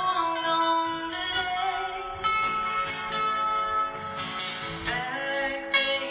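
Two acoustic guitars strummed and picked in a folk song, with a woman singing over them.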